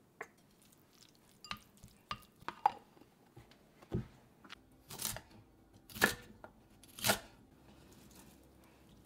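Kitchen food preparation: a few light clicks and taps, then four crisp, noisy strokes about a second apart, like cutting or snapping fresh vegetables.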